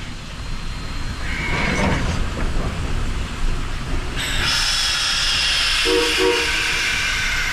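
Narrow-gauge steam train running with a low rumble. A loud, steady high hiss starts suddenly about four seconds in, and two short low tones sound close together near six seconds.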